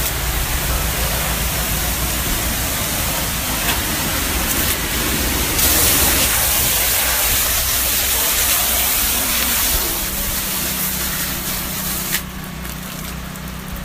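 Pressure-washing rig spraying a light, low-pressure rinse from the wand: a steady hiss of water over the engine running. About twelve seconds in there is a click and the spray stops, leaving the engine running.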